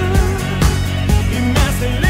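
Background pop music with a steady beat of about two beats a second under sustained melody notes.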